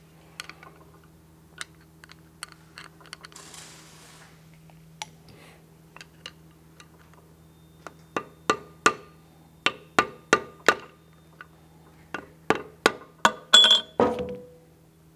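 Hammer striking a chisel or pry tool wedged under a steel cover plate on a tractor final-drive housing: about a dozen sharp, ringing metal taps in two quick runs, knocking the cover loose from its silicone seal. Light clicks of handling tools come before the taps.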